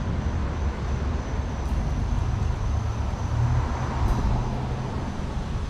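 Steady low background rumble, with no distinct knocks or other events.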